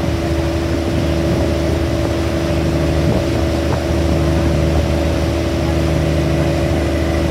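A boat's engine running steadily while underway: a constant low drone with several steady tones.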